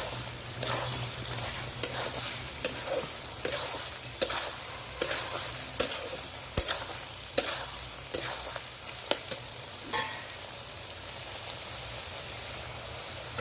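Food sizzling as it fries in a pan, stirred with a spoon, which scrapes against the pan about every second for the first ten seconds; after that only the steady sizzle remains.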